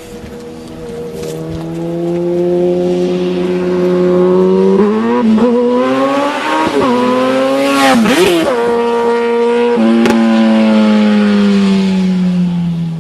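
A high-performance vehicle engine running at high revs: its pitch builds over the first few seconds, drops sharply and climbs back twice in the middle, then holds and slowly falls near the end.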